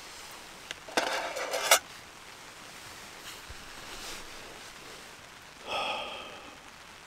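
Loud rustle of nylon fabric, a down jacket rubbing against tent fabric as a person shifts position, about a second in, with a shorter, softer rustle near the end, over the steady patter of rain on a tarp.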